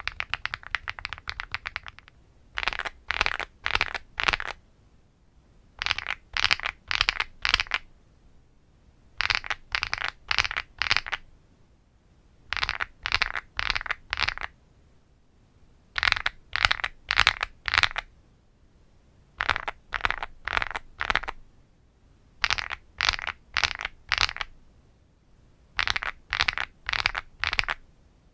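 Weikav Lucky65 mechanical keyboard being typed on. Rapid continuous typing for about the first two seconds, then "asdf jkl;" typed as short runs of a few quick keystrokes, repeating about every three and a half seconds with pauses between.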